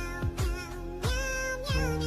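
Background music with a steady kick-drum beat, about two beats a second, under a held, gliding melody line.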